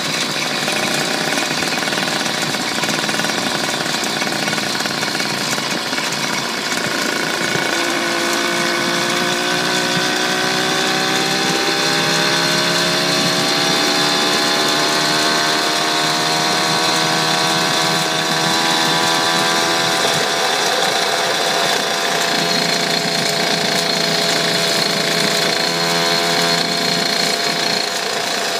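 Small engine of a motorised bicycle running under way. Its pitch climbs gradually for several seconds about a quarter of the way in as it speeds up, then holds steady, with a steady high whine running throughout.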